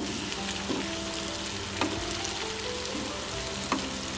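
Beef and chilli sambal sizzling in hot oil in a non-stick frying pan while being stirred with a spatula, with a few short scrapes of the spatula against the pan.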